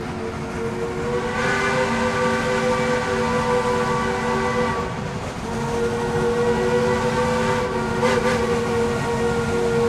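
Shay geared steam locomotive's chime whistle blowing in two long blasts, the first stopping a little before halfway and the second starting again about half a second later, with a short burst of hiss about eight seconds in.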